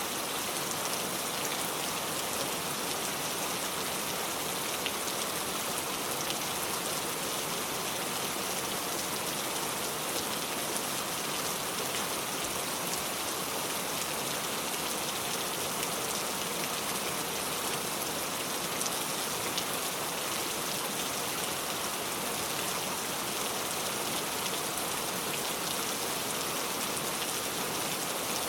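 Steady rain falling, an even hiss of many drops with faint scattered ticks of individual drops hitting a surface.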